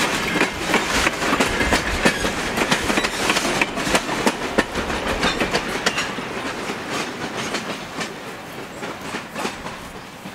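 Passenger cars of a steam excursion train rolling past, their wheels clicking over the rail joints, the sound fading steadily as the last car moves away.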